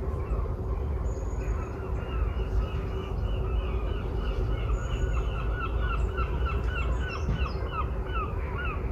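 A bird calling a long run of short, repeated notes, about three a second, over a steady low rumble. A thin high note recurs every few seconds.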